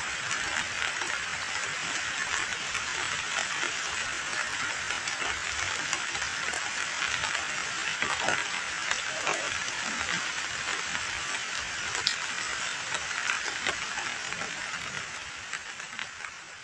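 Heavy rain falling into a shallow pool of muddy runoff water: a dense, steady hiss of countless small drop splashes, growing fainter near the end.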